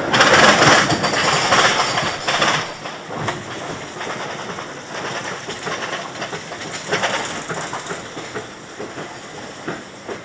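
Arrow Development mine train roller coaster climbing its chain lift: a clattering run of rapid clicks and rattles from the chain and the cars on the steel rails. It is loudest for the first two to three seconds and then eases to a quieter rattle.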